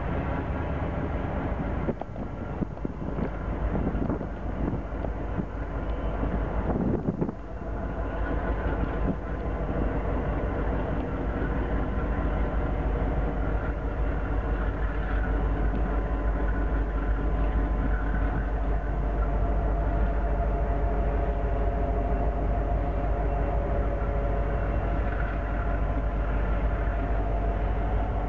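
Several diesel freight locomotives of a Norfolk Southern train passing close by: a steady heavy engine rumble with droning tones running over it.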